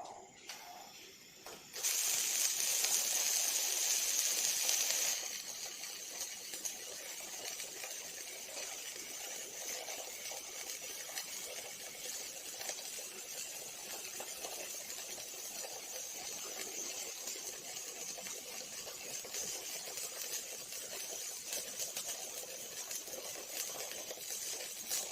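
Robotic arc welding: the welding arc hisses and crackles. A loud hiss starts about two seconds in and eases after about three seconds into a steady crackling sizzle.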